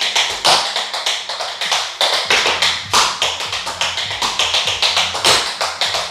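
Tap shoes' metal taps striking a hard floor in a fast, rhythmic run of tap steps, several sharp clicks a second.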